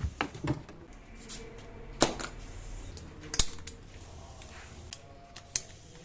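Scattered sharp knocks and clicks over a quiet background, the two loudest about two and three and a half seconds in.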